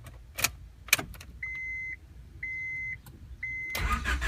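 Keys clicking in the ignition of a 1994 Honda Accord EX, then a dashboard warning chime beeping three times, about once a second. Near the end the starter begins cranking the engine, which is now running on a borrowed ECU.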